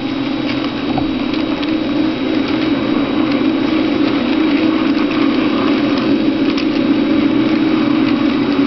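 HO-scale model train running: a steady motor hum and rolling wheel noise, with a few faint clicks.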